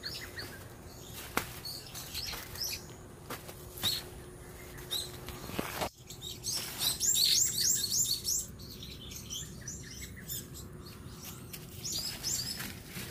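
Small songbirds chirping in quick runs of high, repeated notes, busiest in the second half. A few soft knocks and rustles in the first half.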